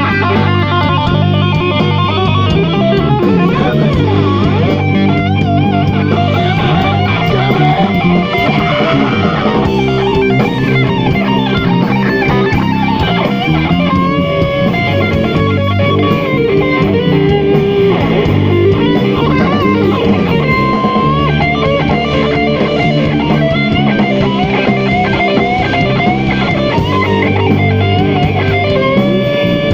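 Live rock band playing loud: electric guitars over bass guitar and drum kit.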